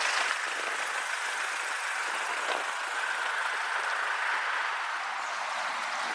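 Steady rush of fast-flowing floodwater, an even hiss with no rhythm.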